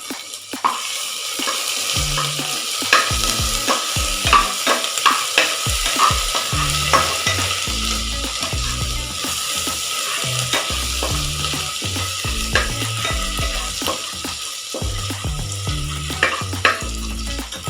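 Ginger-garlic paste with whole spices sizzling as it fries in a pot, stirred with a spoon that clicks and scrapes against the pot many times over the steady sizzle.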